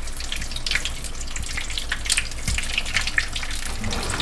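Chicken egg rolls deep-frying in hot oil in a stainless steel pot: a steady sizzle made of many small crackling pops.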